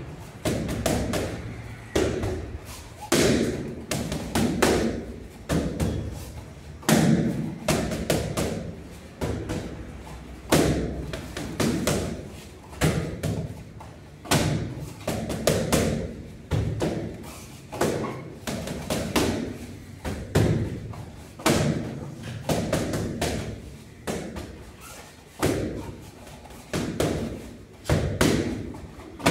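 Punches and kicks landing on focus mitts: repeated sharp thuds at an irregular pace of about one to three a second, each dying away quickly.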